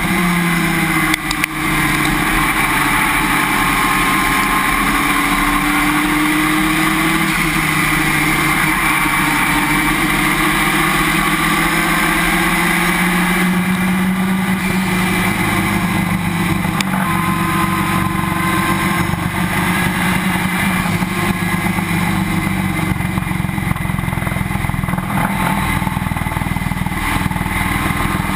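Race car driven at speed, heard from a camera under the car by the left rear wheel: the engine note slowly rises and falls over steady road and wind noise.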